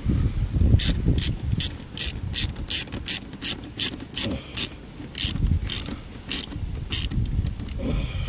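Hand ratchet wrench clicking in a steady series, about two to three clicks a second, as a bolt is run down by hand.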